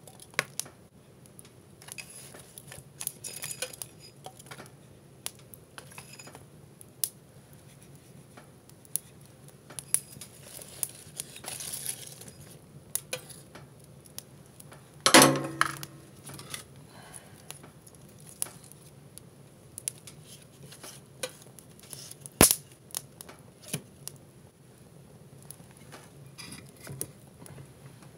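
Scattered metallic clinks, scrapes and knocks of a metal tool and kindling being handled in a wood stove's firebox, with light crackling from the small paper-and-cardboard fire. One louder knock with a short ringing comes about halfway through, and a sharp click a few seconds later.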